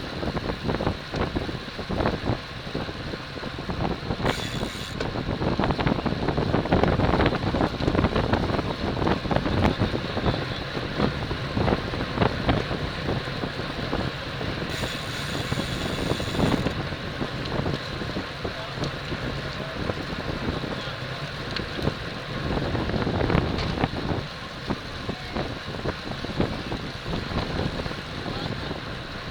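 Wind buffeting the microphone of a camera riding on a road bicycle at racing speed, a gusty rush with scattered clicks and knocks.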